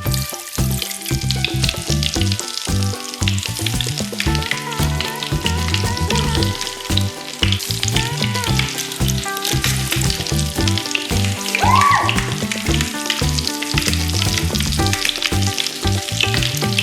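Crystals fizzing and crackling in water with a dense, steady sizzle like food frying, over background music with a regular beat.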